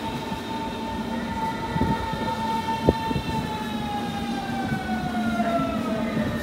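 Berlin S-Bahn electric train pulling into a platform: its motor whine, with several overtones, holds steady and then falls in pitch from about halfway through as the train brakes. A single sharp click is heard near the middle.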